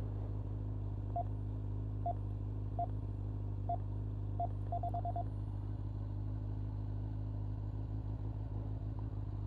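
Honda CBR1100XX Blackbird's inline-four idling steadily, while an electronic keypad beeps five times at roughly one-second intervals, then gives a quick run of about five beeps, as a code entry is accepted.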